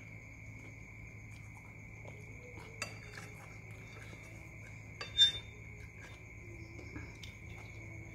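Metal cutlery clinking and scraping against a bowl while eating, with a sharp clink about three seconds in and the loudest, briefly ringing clink a little after five seconds.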